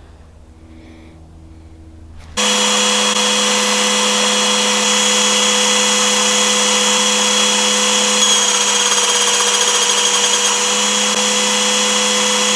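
A steady motor-like whine over a hiss, starting abruptly about two seconds in after a faint low hum and holding level without revving.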